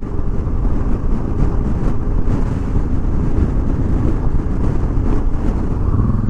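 Motorcycle riding along the road, its engine rumble mixed with wind rushing over the microphone.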